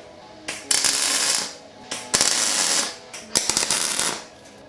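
MIG welder arc crackling in three short bursts with brief pauses between them: tack welds joining steel tubing.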